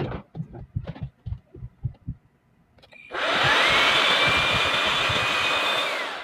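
Rushing air and a motor whine from a small electric cleaner, switched on about three seconds in. The whine rises as the motor spins up, holds steady, and falls away as it is switched off near the end. Before it comes a run of light clicks and knocks from plastic keyboard keys and keycaps being handled.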